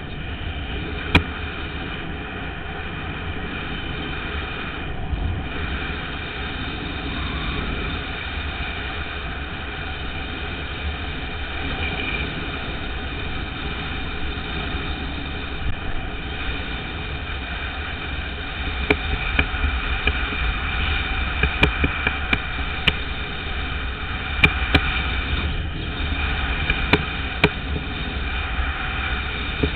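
Longboard wheels rolling fast over asphalt: a steady rushing roll with a low rumble. Scattered sharp clicks come through it, more often in the second half.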